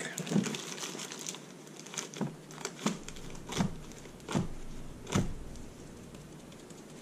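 Plastic wrap crinkling, then about five knocks a little under a second apart as a silicone bar-soap mold full of fresh hot-process soap is dropped onto the countertop to settle the soap into the cavities.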